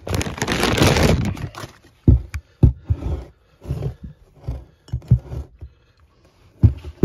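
Thin plastic bag rustling and crinkling loudly as a new cast-metal brake caliper is unwrapped. After about two seconds it gives way to a run of short, dull knocks as the calipers are handled and set down on carpet.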